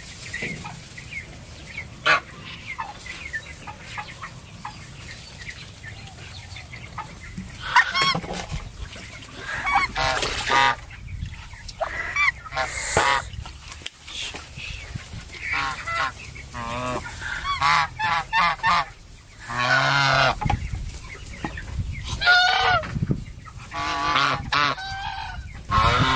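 Domestic geese honking, the calls coming thick and repeated from about eight seconds in, some of them wavering in pitch.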